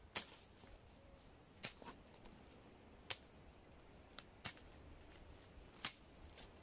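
A hand sickle's blade slicing through leafy ground-cover stems: about six short, sharp swishing cuts, roughly one a second, over a quiet background.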